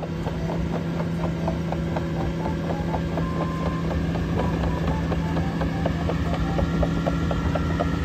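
Caterpillar AP655F tracked asphalt paver driving slowly: a steady diesel engine drone with a rapid, regular clicking from the crawler tracks, several clicks a second.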